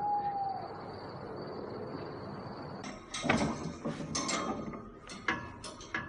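Quiet outdoor ambience with a faint steady high tone for the first few seconds. From about three seconds in, irregular clattering, knocking and scraping as a rabbit hutch's door and metal gate are handled.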